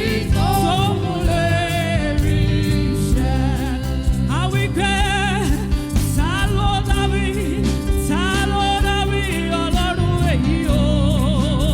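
Gospel song: a lead voice singing with heavy vibrato over a band with a steady beat.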